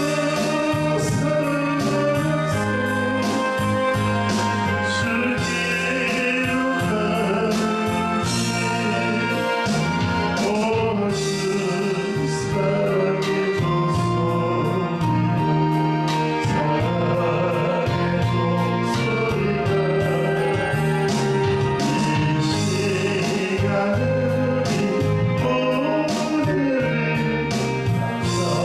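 Worship song: singing over instrumental accompaniment with a steady beat.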